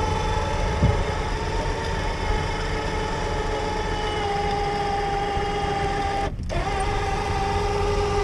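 Electric winch motor whining steadily as it drags the ice shack up onto the trailer, the whine sagging slightly in pitch under load. It cuts out for a moment about six seconds in, then starts again. A low rumble runs underneath.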